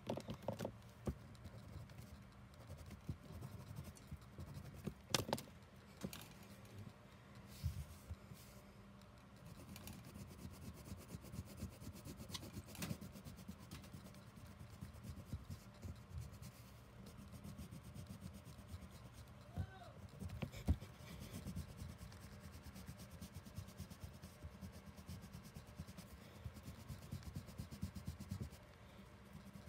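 Wax crayon scribbling on paper: quick back-and-forth colouring strokes, faint and continuous, with a few sharp taps of the crayon along the way.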